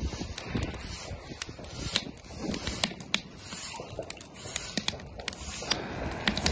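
Scattered sharp pops and crackles of fireworks going off at irregular intervals. Near the end it switches abruptly to a steadier rush of wind on the microphone.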